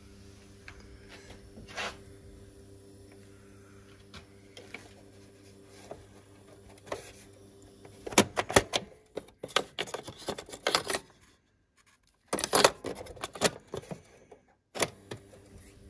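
Plastic clicks and clatter from handling an old Philips radio-cassette player's cassette deck and controls, bunched in the second half, over a steady mains hum.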